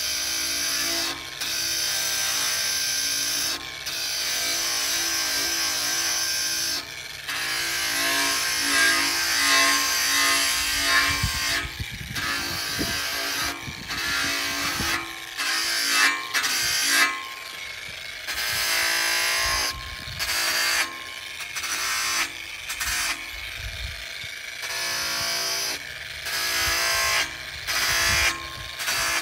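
Bosch GWS 18V-15 PSC cordless angle grinder running at speed and cutting into the flange of a steel I-beam, with a steady motor whine and a heavier rumble as the disc bites into the steel. The sound breaks off briefly and resumes several times.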